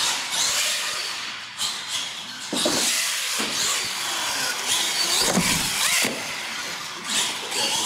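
Radio-controlled monster truck driving on a concrete floor: its motor whine rises and falls with the throttle over the tyre noise.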